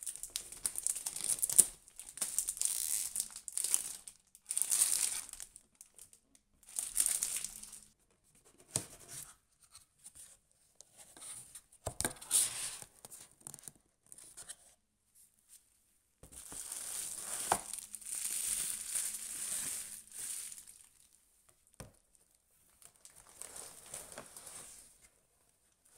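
Close-up rustling and crinkling of packaging being handled: paper manuals and cardboard, then a non-woven fabric pouch and plastic wrap. It comes in bursts of a second or a few seconds, separated by near-silent pauses, with a few sharp taps among them.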